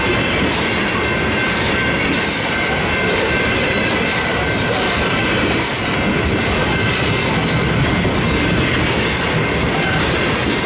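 Freight train's tank cars rolling past close by: a steady rumble of steel wheels on the rails, with occasional clicks and a faint steady high-pitched whine.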